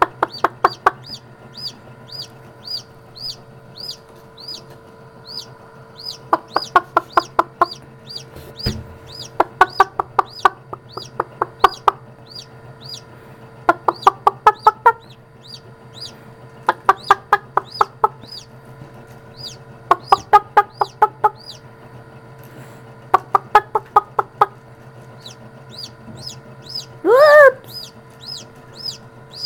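Chicken chicks peeping inside an incubator: short high peeps about twice a second, and every few seconds a quick run of lower, rapid notes. One louder, lower call comes near the end. A steady hum from the incubator runs underneath.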